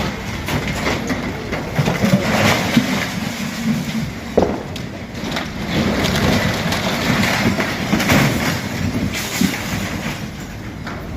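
Strong storm wind gusting and buffeting the microphone in a continuous rumbling rush, with scattered short knocks and rattles.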